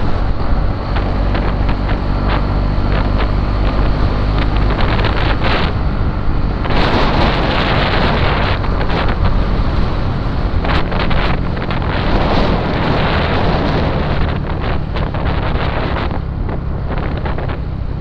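Motorcycle engine running steadily while riding, with heavy wind buffeting the microphone that grows stronger about seven seconds in.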